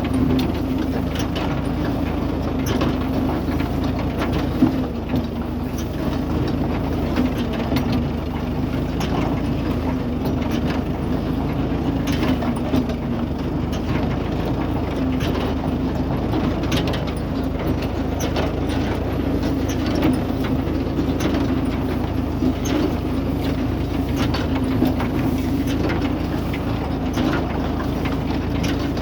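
A John Deere 116 W baler running behind a tractor: a steady engine drone with irregular clacks and knocks from the baler's moving parts.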